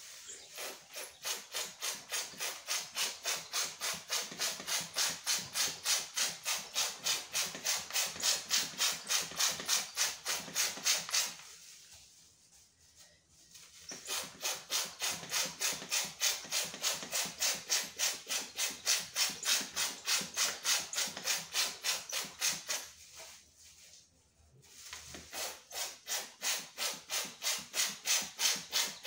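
Hand-pump powder sprayer dusting red velvet decorating powder onto a cake: fast, even hissing puffs of air, about four a second, in three runs with two short pauses.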